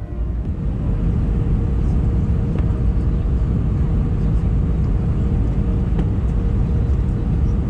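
Airbus A319 cabin noise on final approach: a steady low rumble of engines and airflow, with a constant hum running through it.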